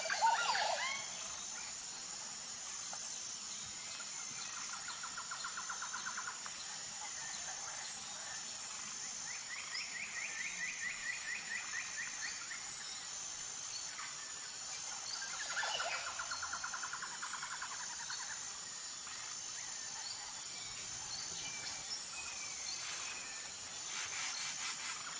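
Natural outdoor ambience: a steady, high-pitched insect drone, with birds calling in short, rapid trills every few seconds.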